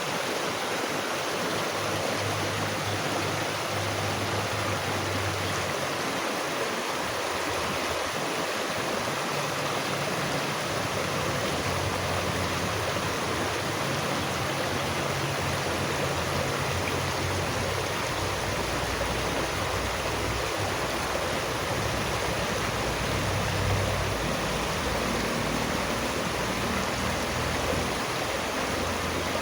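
Steady rushing of flowing water, with a low rumble that comes and goes underneath.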